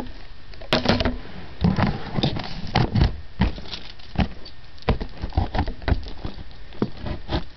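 A key scraping and picking at a shipping box to cut it open, making irregular scratches and knocks.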